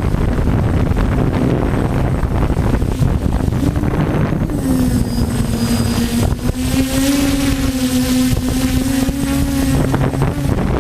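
DJI F450 quadcopter's electric motors and propellers humming in flight. The pitch dips about four and a half seconds in and rises again about two seconds later. Heavy wind buffets the microphone throughout.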